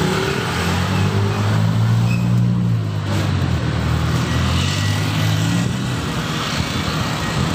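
Street traffic: a motor vehicle's engine running close by, a low hum that is strongest for the first four seconds or so and then fades, over general road noise.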